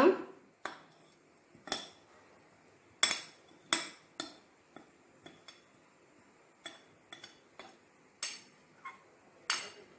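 A spoon clinking and tapping against a bowl as sesame seeds are added to achappam batter. There are about a dozen light, irregularly spaced clinks, some with a short ring.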